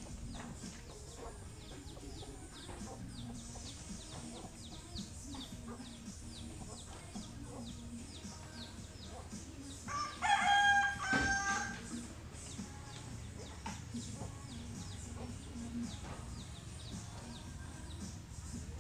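A rooster crows once, about ten seconds in, in a loud call of two parts with a slight drop in pitch at the end. Faint high chirping repeats steadily in the background.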